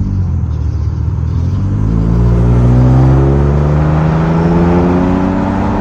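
A vehicle engine accelerating, its pitch rising steadily over several seconds.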